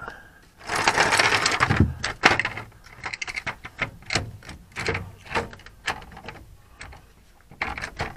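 Hand ratchet wrench clicking while tightening the mounting bolts of an RV stabilization jack. A fast run of clicks about a second in, then irregular single clicks and short runs of clicks.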